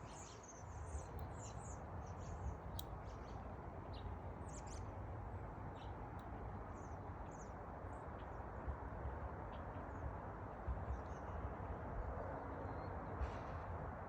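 Small birds chirping in short, high, falling notes, busiest in the first few seconds and sparser later, over a steady low rushing background noise.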